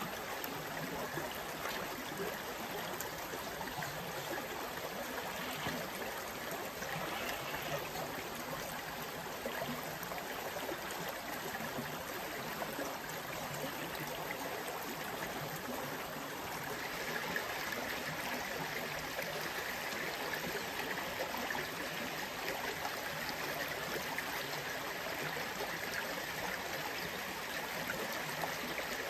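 Creek water flowing and rippling over rocks, a steady rushing hiss. It grows a little brighter and louder a bit over halfway through.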